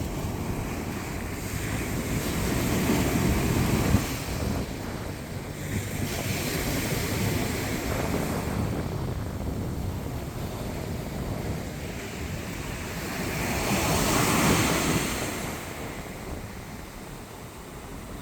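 Sea waves breaking and washing up a sandy beach: a steady surf hiss that swells as each wave breaks, loudest about three seconds in and again near the end, then falls back.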